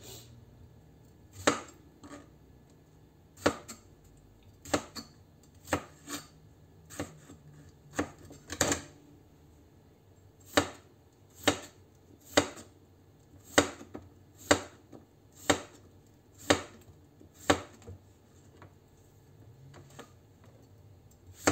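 Chef's knife slicing a tomato and then a cucumber on a white cutting board: a sharp knock each time the blade meets the board, about one a second. The knocks are uneven at first, then steady, and stop for a few seconds near the end.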